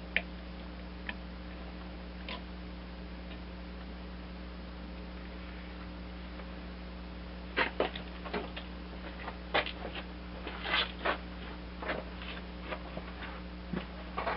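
Hand tools clinking and tapping against steel mower-deck parts: a few scattered clicks, then a busier run of sharp metal clinks over the second half, over a steady electrical hum.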